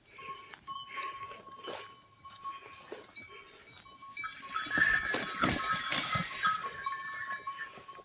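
Livestock bells ringing and clinking as cattle and a goat walk through dry undergrowth, with rustling and hoof knocks. The jangling is busiest from about halfway through.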